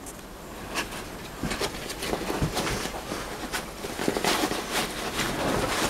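Scattered light clicks and knocks from engine parts being handled at the bench around a diesel cylinder head.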